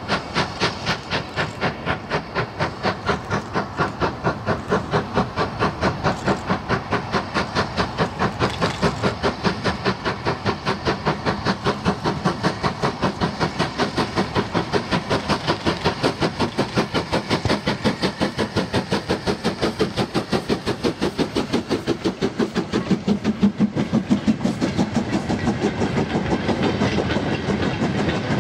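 LMS Stanier Class 8F two-cylinder 2-8-0 steam locomotive working a heavy freight train, its exhaust beating in a fast, even rhythm as it approaches and passes, loudest as it goes by. Near the end the loaded freight wagons rumble past, their wheels clattering over the rail joints.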